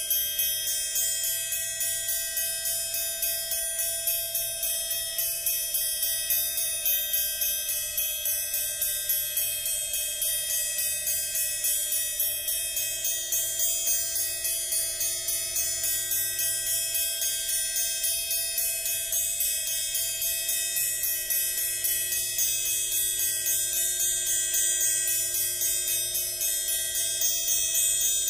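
Amplified triangle tapped with a metal beater in a fast, steady stream of strokes while partly damped by hand. Its high, bell-like overtones ring on continuously, some slowly swelling and fading.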